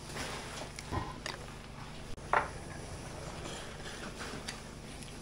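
Camping gas stove burning under a metal pot, a steady hiss, with a few light knocks and clinks of cookware, the sharpest about two and a half seconds in.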